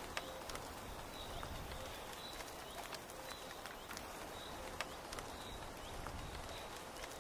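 Steady rain pattering on tent canvas, with scattered drips tapping. A short high call from a forest creature repeats about once a second.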